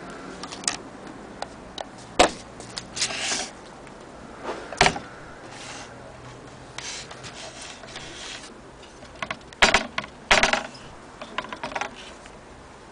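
Handling noises: scattered sharp clicks and knocks, the loudest about two, five, nine and a half and ten and a half seconds in, with short stretches of rubbing and scraping between them, as a wooden-mounted barometer and the camera are handled on a wooden table.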